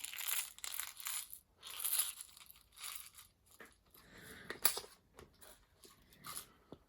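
Small plastic packets and parts boxes of watch crowns being handled: irregular crinkling and rustling with several light clicks, the sharpest about two thirds of the way through.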